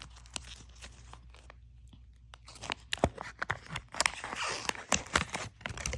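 Toy packaging and a paper collector's guide rustling and crackling as they are handled. The first half is quiet, then there are many quick crinkles and clicks.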